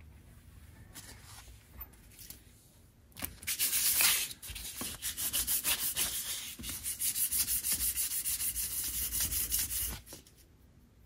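Metal carburetor spacer block rubbed back and forth on 400-grit wet-and-dry sandpaper laid on a surface plate: a rapid, rhythmic scraping that starts about three seconds in and stops about a second before the end. The block is being lapped flat to take out a slight wobble in its mating face.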